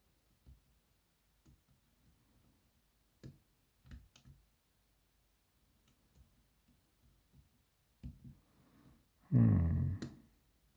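Faint, scattered clicks and ticks of a hook pick and tension wrench working the pins of a BKS 88 pin-tumbler cylinder, with a few sharper ticks about three and four seconds in. Near the end comes a short, low voiced hum.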